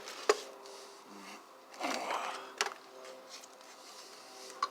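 A few sharp clicks and a short scraping rustle as the parts of a disassembled garbage disposal are handled, over a faint steady hum.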